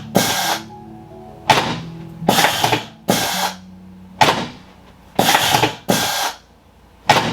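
Short, harsh mechanical buzzing bursts, each under a second, starting and stopping abruptly about nine times in a row, over quiet background music.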